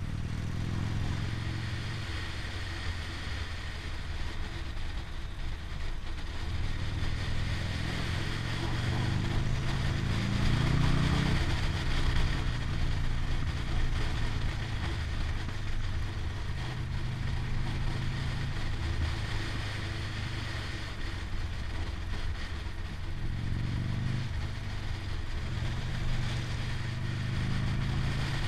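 Motorcycle engine under way, heard from a camera mounted on the bike, pulling steadily and climbing in pitch as it accelerates, first about a quarter of the way in and again near the end, over a steady rush of riding wind.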